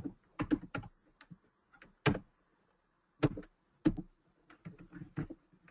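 Irregular clicks of a computer keyboard and mouse, about a dozen short taps spread unevenly.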